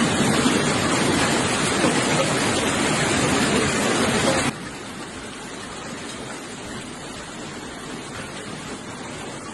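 Hail pelting down during a hailstorm, a dense steady hiss of many small impacts. About four and a half seconds in it drops suddenly to a quieter, similar hiss.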